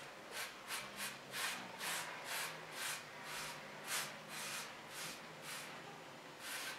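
Trigger spray bottle pumped about a dozen times in quick succession, each pull a short hiss of degreaser mist, roughly two squirts a second.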